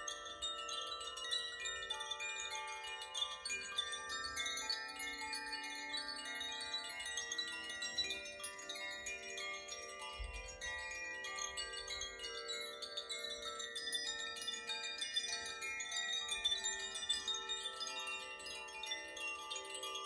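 Koshi and Zaphir chimes rung by hand, their swinging clappers striking the tuned rods. Many clear tones overlap and sustain in a continuous shimmering wash.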